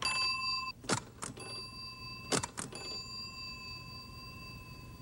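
Small bell on a Hollerith census tabulator ringing three times, signalling each counted card. Sharp mechanical clunks fall between the rings. The first ring is cut short and the last fades slowly away.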